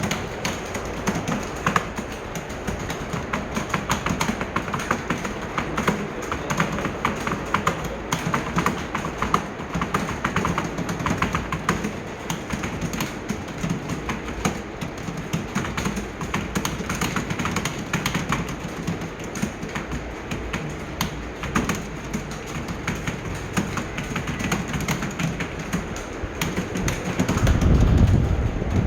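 Several people typing fast on computer keyboards, a dense, steady clatter of key clicks. A loud low rumble swells near the end.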